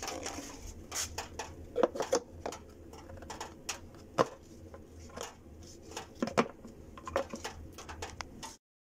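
Irregular light clicks and knocks as a transmission oil pan is handled and set back in place against the transmission, cutting off suddenly near the end.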